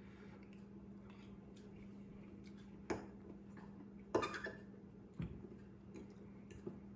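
A fork tapping and scraping in a china bowl as food is cut and picked up: a few faint, scattered clicks, the clearest about three and four seconds in, and a soft thump a little after five seconds. A steady low hum runs underneath.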